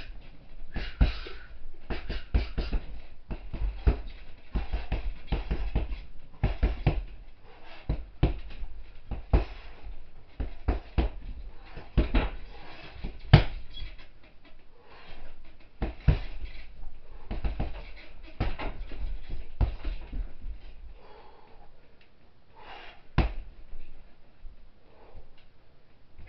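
Fists in hand wraps punching a hanging heavy bag: irregular combinations of dull thuds, several a second. The punching thins out about 20 seconds in, with one hard strike a few seconds later.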